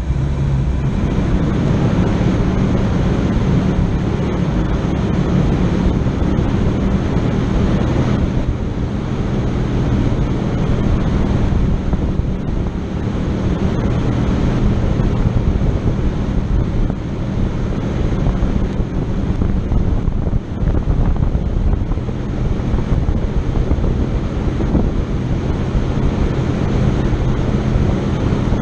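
An engine running steadily, with heavy wind noise on the microphone.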